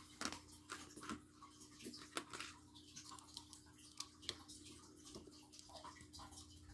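Small plastic Lego pieces clicking and clacking as they are handled and pressed together: a string of sharp, light ticks over a faint steady hum.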